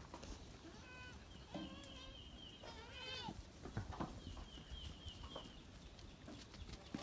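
Goats bleating, two faint calls: a short one about a second in and a longer, wavering one about three seconds in, with scattered light knocks among them.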